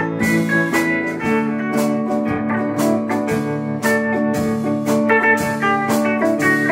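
Small band playing a slow country ballad: electric guitars carry an instrumental passage of held, ringing notes with a drum keeping time, and no singing.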